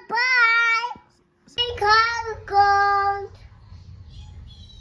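A young child singing a few high, wavering notes, with a short break after the first. A faint low hum remains after the singing stops.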